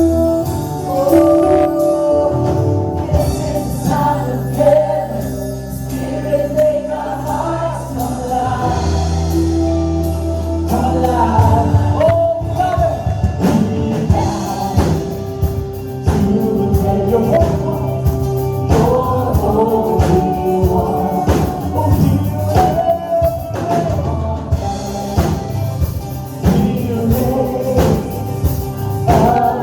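Live worship band and singers performing a contemporary worship song, with held low notes under the voices and a steady beat that comes in about two seconds in.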